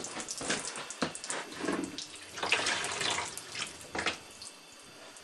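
Water splashing and trickling out of a bullet-holed plastic milk jug into a plastic tub, in uneven spurts as the jug is lifted and handled.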